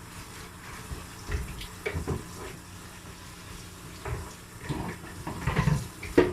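Water running from a kitchen tap into the sink while dishes are washed by hand, with a few dull knocks of dishes being handled.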